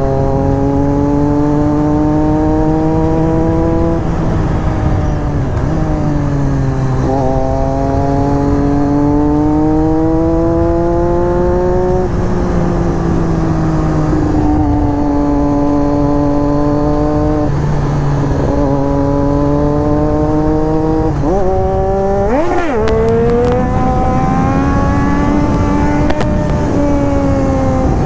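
Triumph Daytona 675's inline three-cylinder engine pulling along the road, its pitch climbing steadily and then dropping several times as it accelerates and eases off. A low rush of wind and road noise runs under it.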